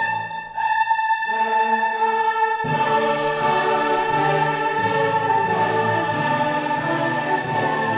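Background classical music: an orchestra with a choir holding long notes, and the low strings coming in after a couple of seconds.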